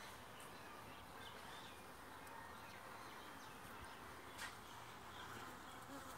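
Faint outdoor quiet with scattered bird chirps and the low buzz of a bee coming and going faintly. A single short tick about four and a half seconds in.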